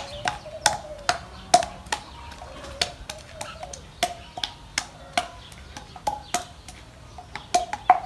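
Repeated sharp knocks at an uneven pace, about one to two a second, each with a brief ring.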